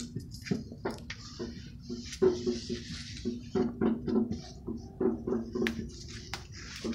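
Rustling and brushing of large leaves, with many scattered clicks and light knocks, and a low hum that comes and goes.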